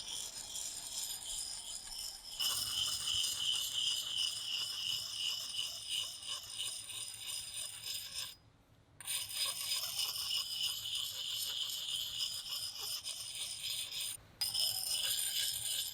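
Coarse black side of a water-soaked dual-grit axe sharpening stone rubbed in small circles along a steel axe edge: a steady, high-pitched rasping scrape. It stops for about half a second around the middle and breaks off briefly again near the end.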